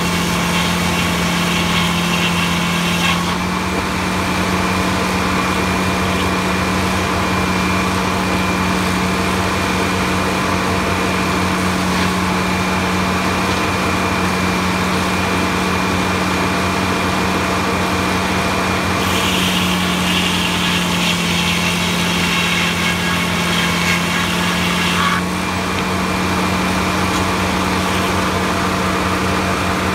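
Large circular sawmill running steadily with a constant machine hum. Its big toothed blade cuts through a log for about the first three seconds and again for about six seconds in the second half, adding a harsher, higher cutting noise over the drone.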